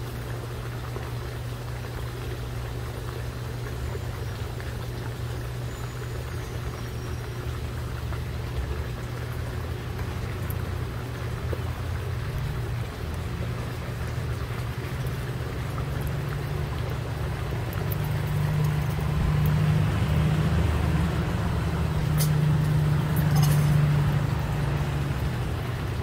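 Low, steady engine rumble of passing road traffic that swells louder about two-thirds of the way through and eases off near the end. A few sharp clicks sound near the end.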